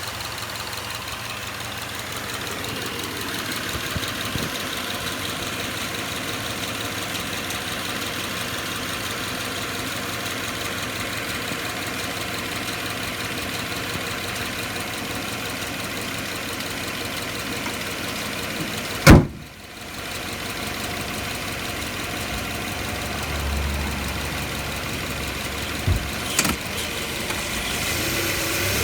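Underside drivetrain and road noise at the right front axle of a 2013 Subaru Outback on the move, a steady grinding at the point where the axle enters the transmission, which the owner can't explain. One loud thump about two-thirds of the way through, and two smaller knocks later on.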